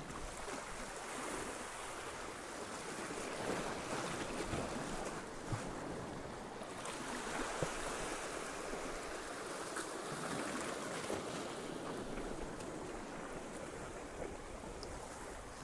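Small sea waves breaking and washing over shoreline rocks, the rush of water rising and falling every few seconds.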